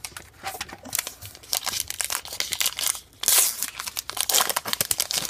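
Trading card pack wrapper being torn open and crinkled by hand, an irregular crackling that is loudest a little past the middle.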